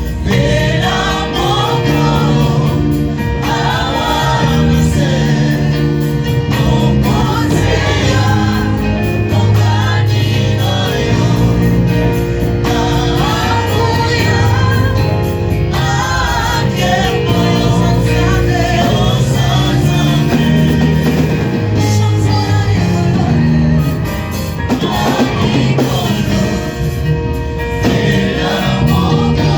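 Gospel music in church: a choir singing over band accompaniment with held bass notes that change every second or two.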